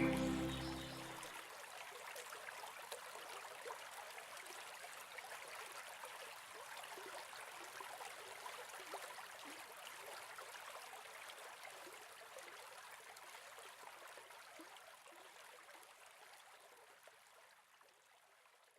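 Water running in a shallow stream, a faint steady trickling that slowly fades out near the end. The last of a piece of music dies away in the first second.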